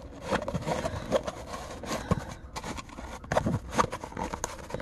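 A stiff diamond-painting canvas with its plastic cover sheet being rolled by hand around a tube, crinkling and scraping in irregular rustles and clicks.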